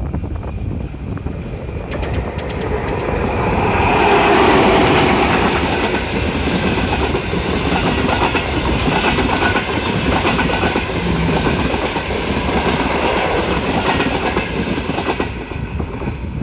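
Passenger train hauled by a ChS4T electric locomotive passing close by, its wheels clattering rhythmically over the rail joints. The sound swells to its loudest about four seconds in, stays loud as the coaches roll past, and fades near the end.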